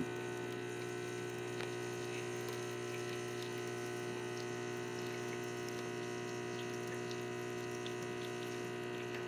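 Lelit Elizabeth PL92T espresso machine's upgraded ceramic pump humming steadily during the extraction, with espresso trickling into a glass.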